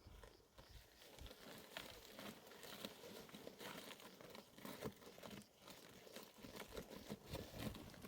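Faint, irregular rustling and crinkling with scattered small clicks and crunches.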